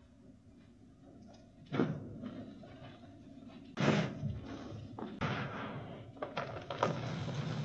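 Crunchy reformed chalk pieces cracking and crumbling as they are crushed by hand. There are three sharp crunches a second or two apart, then a run of smaller crackles near the end.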